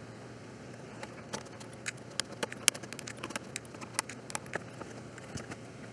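Flush cutters snipping the excess leads off freshly soldered through-hole resistors on a circuit board: an irregular run of sharp clicks starting about a second in.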